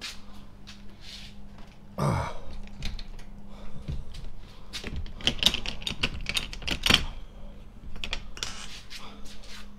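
Padlock and metal hasp on a sheet-metal enclosure door being unlocked and handled: a run of sharp metallic clicks and rattles, densest in the middle, with a short falling sound about two seconds in. A steady low hum runs underneath.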